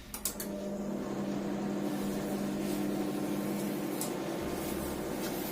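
Microwave oven with grill function starting its auto-grill cooking cycle: a couple of clicks as it starts, then a steady running hum.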